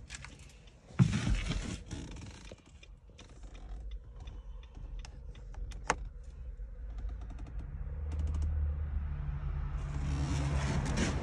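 Nissan Rogue's driver's door shutting with one loud thud about a second in, then a few sharp clicks from the hazard-light button and cabin controls. About eight seconds in, the car's engine comes up as a low, steady rumble that grows louder.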